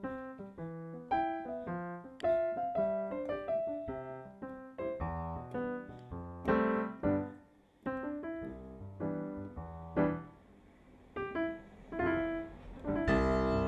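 Pianoteq software piano played from a keyboard: a tune of single notes over chords and bass notes. There is a short pause about ten seconds in, and the chords grow fuller and louder near the end.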